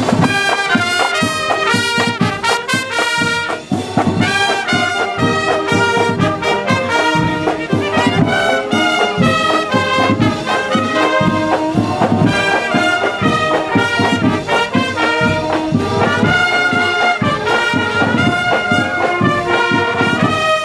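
Brass marching band playing a tune on trumpets and trombones, with drums keeping a steady beat.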